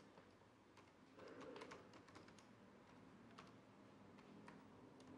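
Faint keyboard typing: irregular key clicks, a few each second, as text is typed out.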